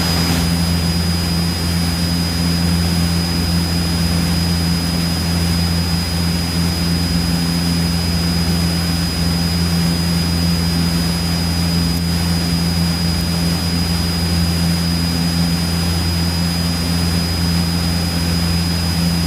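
Cessna 172 piston engine and propeller droning steadily in flight, heard from the cabin, with a thin steady high-pitched whine running alongside.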